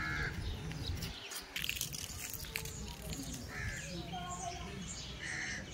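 Short bird chirps, a few times, over a low steady rumble of outdoor ambience.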